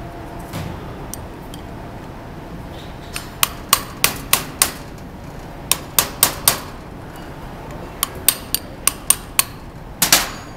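Hammer striking a brass punch to drive the ball bearings out of a CV joint's bearing cage: sharp metallic taps in several quick runs of four to seven, the loudest near the end.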